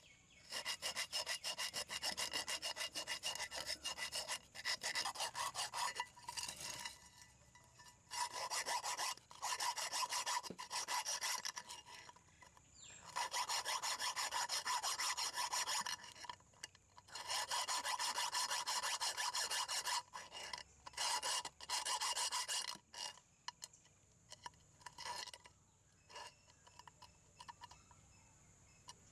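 A round file rasping rust out of the air holes of an old rusted charcoal iron, in spells of quick back-and-forth strokes with short pauses. For the last several seconds the strokes are sparser and fainter.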